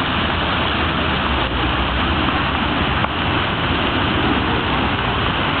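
Water from a large multi-jet fountain splashing and falling into its basin: a steady, even rushing.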